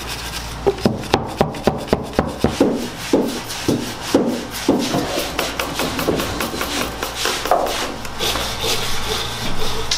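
Stiff brush scrubbing bare wooden wall studs in quick scraping strokes, about three a second, turning into rougher, less regular rubbing in the second half. This is a sprayed mold treatment being worked into the wood.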